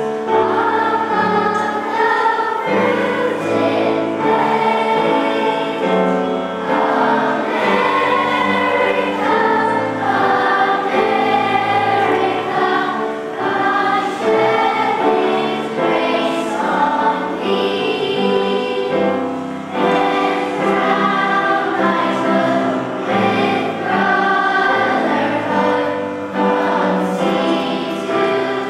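Children's choir singing a song.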